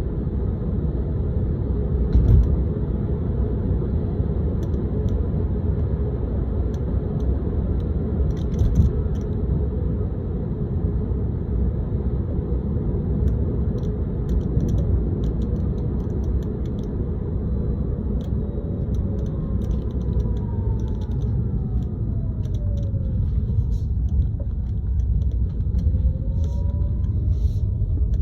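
Tesla Model 3 cabin while driving: steady road and tyre rumble with light rattling clicks coming and going throughout, the rattle the owner is trying to track down. In the second half a faint whine falls and then rises in pitch.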